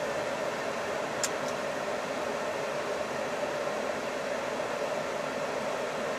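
Steady rushing noise inside a Hino Profia truck cab, the air-conditioning fan blowing at full along with the truck's running noise. A faint high click about a second in.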